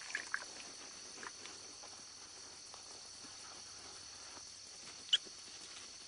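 A steady, high-pitched chorus of crickets, with a few faint short squeaks and one sharper squeak about five seconds in.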